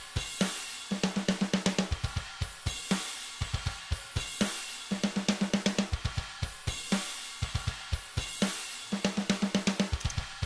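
Programmed drum-kit loop played back: kick, hi-hats and cymbals, with a quick run of snare hits near the end of each pass. The pattern repeats about every four seconds. The snare is replaced by a triggered sample, with softer hits switching to a second snare sample.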